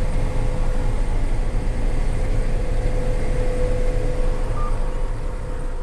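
Combine harvester running steadily: a constant low rumble with a steady whine over it.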